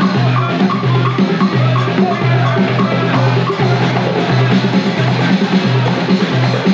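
Moroccan dakka marrakchia troupe drumming: double-headed drums keep a deep, even beat about twice a second, with frame-drum jingles and voices chanting over it.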